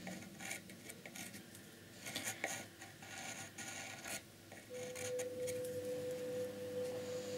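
Pencil scratching in short strokes on the painted surface of a box, sketching an outline. A thin, steady hum comes in a little past halfway and keeps going.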